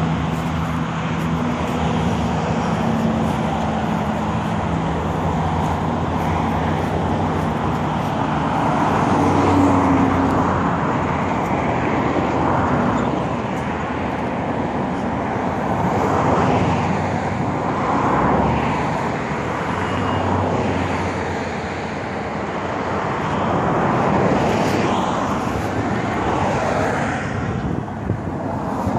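Road traffic passing: cars swell and fade several times over a steady roadside rumble, with a low engine hum in the first few seconds.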